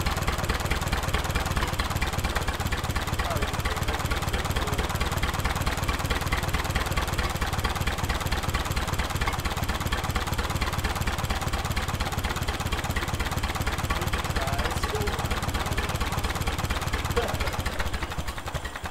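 1942 Silver King Model 41 tractor engine running steadily at idle, newly revived after decades, its stuck valves freed. It dies away near the end.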